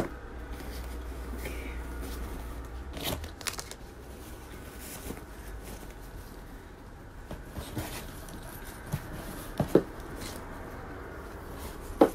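Rustling and crinkling of cloth and plastic wrapping being unpacked and unfolded, with a few sharp clicks and taps, the loudest near the end.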